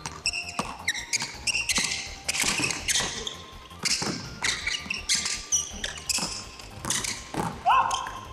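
Basketball dribbled hard on a hardwood gym floor, an irregular run of bounces, mixed with short high squeaks of basketball shoes on the floor as the players cut and drive.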